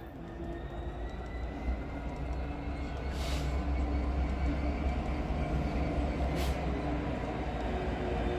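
A train approaching: a steady low rumble that grows gradually louder, with two brief hisses about three and six seconds in.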